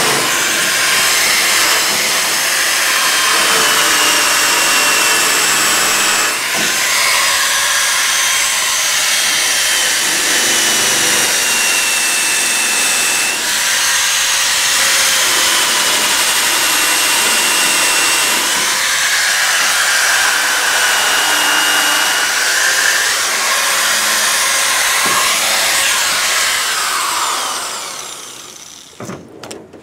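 Electric drill spinning a wire brush against the rusty steel rail of a pickup truck bed: a steady motor whine over scraping, the pitch wavering as the brush is pressed in and eased off. It winds down and stops near the end.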